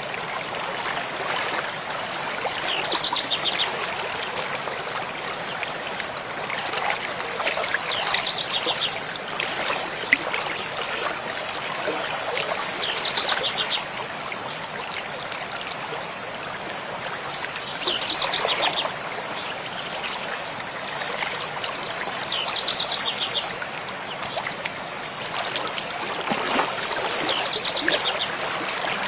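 Mountain stream flowing steadily. A bird sings the same short trilled phrase about every five seconds over it.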